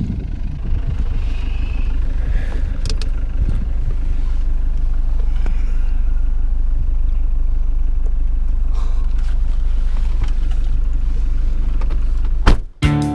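Car driving, a steady low rumble with a few faint knocks, cut off by a sudden loud click near the end.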